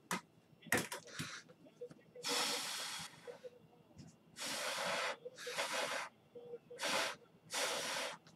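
Trading cards and foil pack wrappers being handled: a few light clicks in the first second, then five short hissing swishes, each under about a second long.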